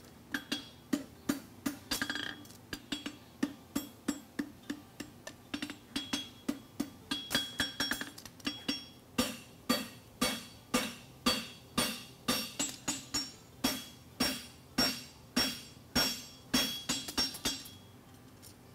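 Farrier's hammer striking a red-hot steel horseshoe on an anvil in a steady rhythm of about two blows a second, each blow with a short metallic ring.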